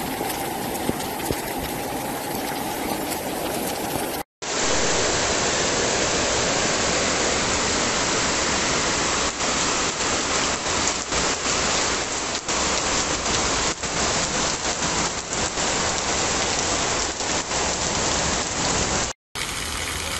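Heavy rain pouring down and hitting the ground, a steady loud hiss, with scattered sharp ticks through the middle. The sound drops out abruptly twice, at about four seconds and near the end.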